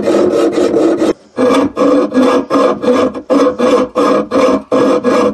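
Mini hacksaw cutting through half-inch copper water pipe by hand, in a quick, even back-and-forth rhythm of rasping strokes. The strokes break off briefly about a second in, then resume.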